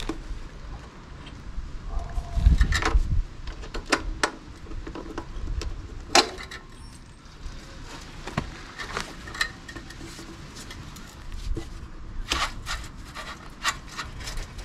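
Stock exhaust silencer of an Aprilia Tuareg 660 being twisted and worked off its link pipe by hand: metal rubbing and scraping on metal with scattered clicks and knocks, a heavy thump about two and a half seconds in, and a flurry of clicks near the end.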